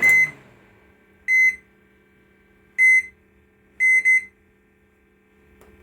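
Brastemp microwave oven's control panel giving about five short high beeps at irregular intervals, the last two close together. The beeps show the panel is powered and working again on the new fuse, with the magnetron disconnected.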